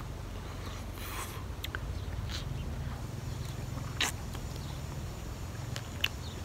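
Eating sounds: close-up sucking, slurping and lip smacks on ice lollies, a handful of short wet clicks with one louder smack near the middle, over a steady low hum.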